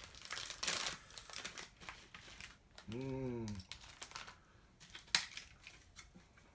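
Utensil clicking and scraping against a bowl in irregular strokes as raw egg is stirred and broken up into rice, with one sharper click about five seconds in.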